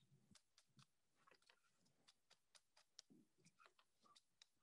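Near silence with faint, irregular clicks, the loudest about three seconds in: a nata blade splitting and shaving a thin bamboo strip.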